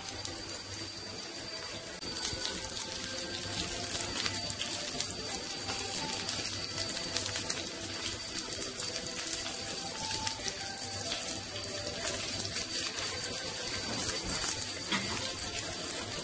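Stuffed peppers sizzling as they pan-fry in a grill pan: a steady crackling hiss full of fine irregular pops, picking up a little about two seconds in.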